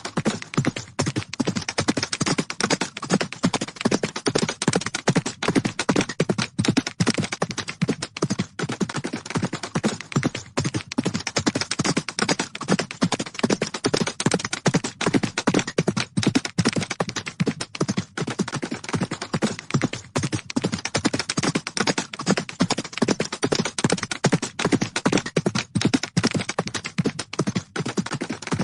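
Horses galloping: a fast, unbroken stream of hoofbeats, many thuds a second, keeping an even level throughout.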